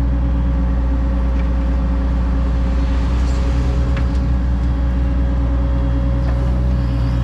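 Excavator's diesel engine running steadily under load while digging, a low hum with a steady higher tone above it and a few faint knocks.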